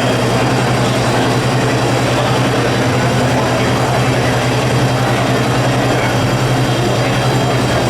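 An engine running steadily with a loud, even low hum.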